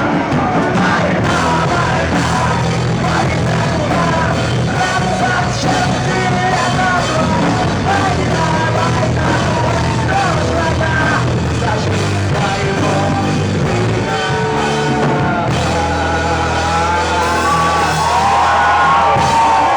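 Rock band playing live, a lead melody bending up and down in pitch over a steady low bass line.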